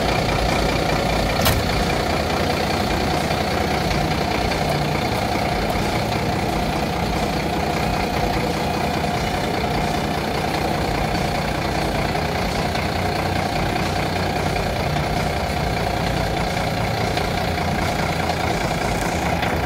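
Volvo FE fire engine's diesel engine running steadily at low revs, with a single sharp click about a second and a half in.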